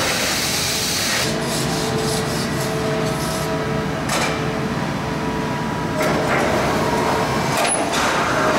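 Steady machinery noise on a sheet-metal shop floor: a continuous hiss and hum with faint steady tones running through it, changing a little about six seconds in.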